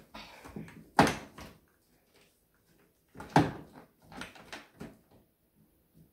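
Groceries and black storage baskets being handled on pantry shelves: a series of short knocks and scrapes, the sharpest about a second in and again about three and a half seconds in.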